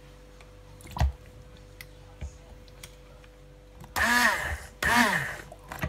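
Immersion (stick) blender pulsing in a pot of chunky tomato sauce, starting about four seconds in: two short bursts, the motor whine rising and falling in each. A single knock about a second in.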